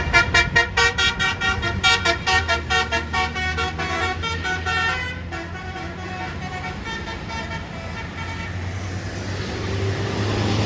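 Bus basuri telolet air horn playing a fast melody of short pitched notes, about five a second, that fades out past the halfway point. A bus engine's low running sound then grows louder near the end.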